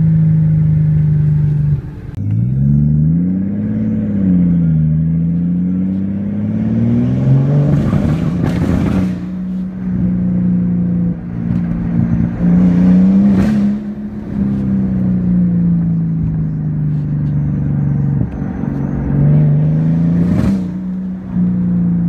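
Mercedes S600's M275 twin-turbo V12 running under load, its engine note rising and falling over several pulls, with three short harsh, rough breaks at the top of the pulls. The rough running under heavy load and high boost is the misfiring the owner complains of.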